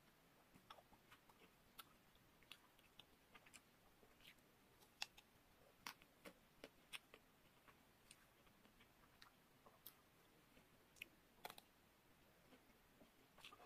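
Faint, irregular crisp clicks and crackles of a nut-studded chocolate-coated ice cream bar being bitten and chewed, the chocolate shell cracking.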